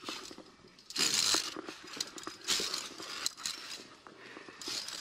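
A climber moving up a via ferrata on its steel cable: short bursts of rustling and scraping about every second and a half, with light clicks in between.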